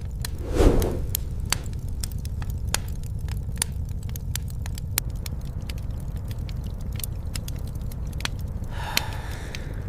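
Wood fire crackling with scattered sharp pops over a steady low rumble of storm wind, with one louder crackle about half a second in and a short creaking burst near the end.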